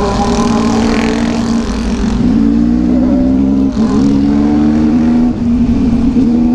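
Motorcycle engine running under way, heard from the moving bike; its pitch steps up and down and the sound dips briefly a few times.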